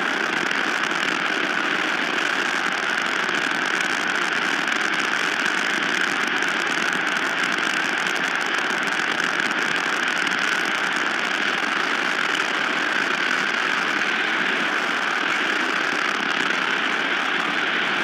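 Strong wind blowing, a steady, unbroken rushing noise.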